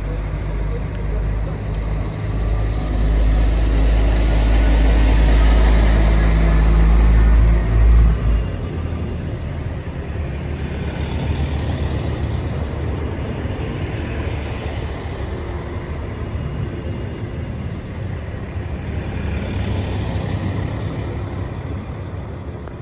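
Diesel multiple unit railcar running at a station platform: a loud, deep, steady engine drone that drops off sharply about eight seconds in, followed by a lighter engine sound that rises and falls as the railcar pulls away along the platform.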